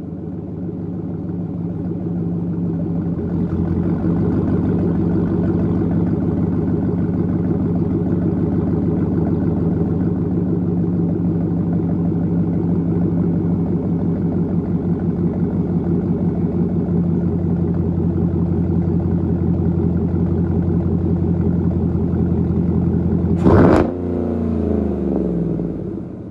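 Chevrolet 6.2L L86 V8 idling steadily through a Corsa Sport 3.5-inch catback exhaust after a cold start. Near the end, one quick rev that winds back down.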